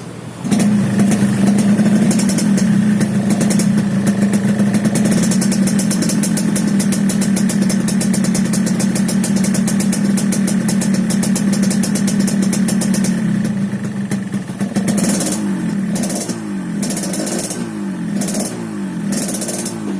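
Yamaha RX-King's single-cylinder two-stroke engine through an exhaust tuned for a 'ngorok' (snoring) note, running steadily after coming in suddenly about half a second in. From about two-thirds through it is revved in a series of short blips, about one a second, the revs rising and falling each time.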